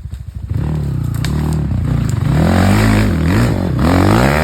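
Off-road 4x4's engine running with an even pulsing beat, then about half a second in it revs up and its pitch rises and falls several times under throttle.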